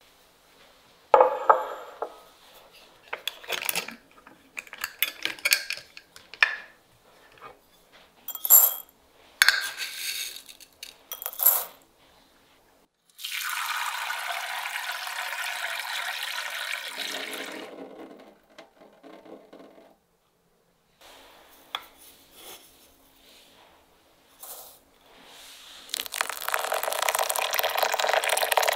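Dry rice grains poured and rattling into a small glass bowl with sharp clinks. About thirteen seconds in, tap water runs steadily into the bowl of rice in a stainless steel sink for several seconds to rinse it. Near the end, boiling water is poured onto the rice in the glass bowl in a steady stream.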